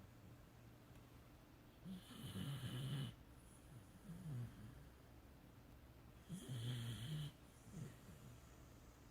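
A beagle snoring: two long, louder snores about four and a half seconds apart, each followed by a shorter, softer one, in a slow, regular breathing rhythm.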